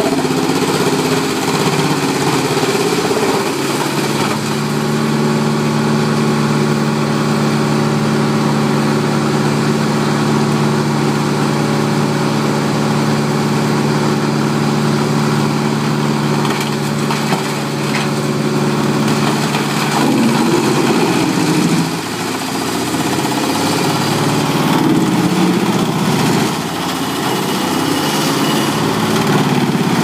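Large trailer-mounted wood chipper running hard with a steady engine note. From about two-thirds through, the sound turns rough and uneven as logs are fed in and chipped under load.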